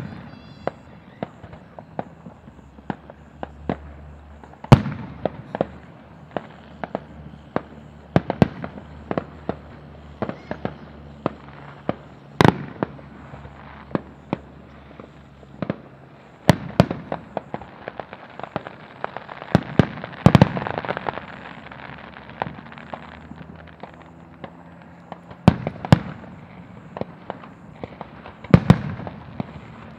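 Aerial fireworks shells bursting in a string of sharp bangs at irregular intervals, with louder booms every few seconds. About twenty seconds in there is a denser run of crackling.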